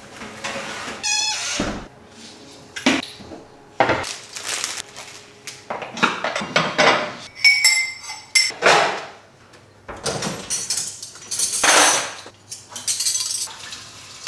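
Dishes and cutlery clattering and clinking, with knocks and thuds of tidying up as a kitchen is cleared and a dishwasher is loaded; the sounds come in irregular bursts.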